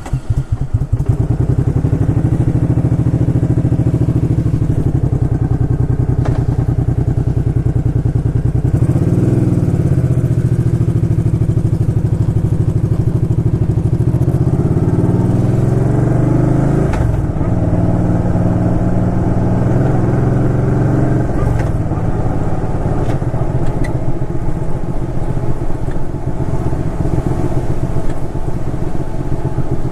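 Suzuki Intruder Classic 400 V-twin motorcycle engine catching at the start and then running. Twice the revs climb and drop back, as when the throttle is opened and a gear is taken.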